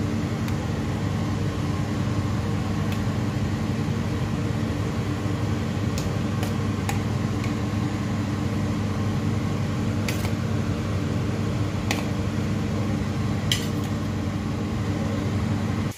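Steady hum of an electric fan, with a few light metallic clinks of a spoon against steel cookware.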